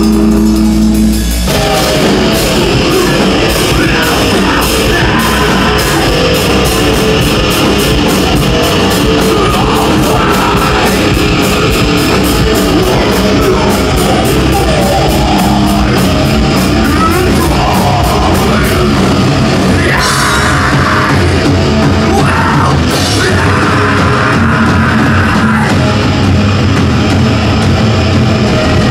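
Loud live rock band: a held chord rings for about a second and a half, then drums and distorted guitars crash in together with fast drumming. Vocals come in over the band in the second half.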